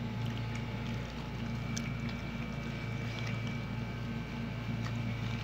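Steady low mechanical hum, like a running motor, with faint scattered clicks and crinkles of aluminium foil as hands pick rice off it.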